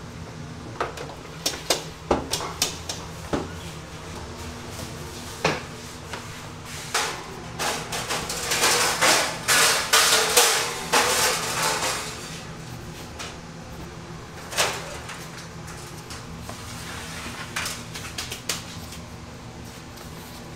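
Metal bench scraper chopping dough on a floured wooden table, its blade knocking sharply on the wood. The knocks come singly at first, then in a quick run of chops and scrapes in the middle, then a few more near the end, over a steady low hum.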